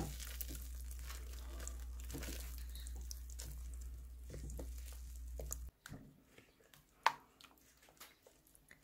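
Silicone spatula stirring thick hot-process soap batter in a slow-cooker crock: soft, irregular squishing and scraping over a low steady hum. The hum cuts off suddenly about two-thirds of the way through, and a single sharp click follows a little later.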